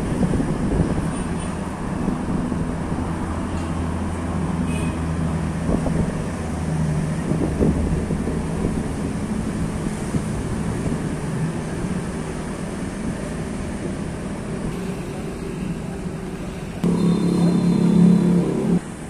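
Motor vehicle engine running as a steady low hum. It grows louder for about two seconds near the end, with a faint high whine, then drops off abruptly.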